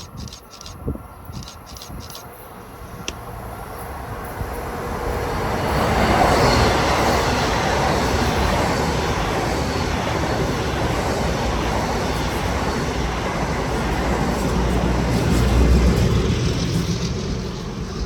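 Long Island Rail Road train passing at speed. Its rushing noise builds over a few seconds, stays loud for about ten seconds and eases off near the end. A few sharp clicks come in the first few seconds.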